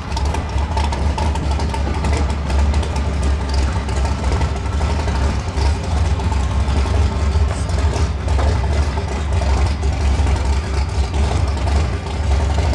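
A Subaru WRX and a twin-turbo Audi A4 idling at a drag strip start line, heard from a distance over a heavy, steady low rumble, with no revving or launch.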